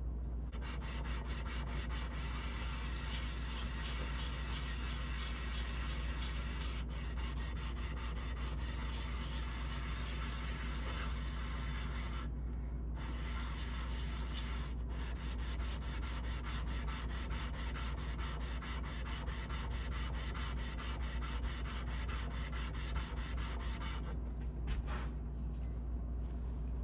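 Steel blade of a Landis leather splitter rubbed back and forth on sandpaper, lapping it flat to sharpen it: a steady scraping rasp of quick repeated strokes, pausing briefly a few times, notably around the middle and near the end. A low steady hum sits underneath.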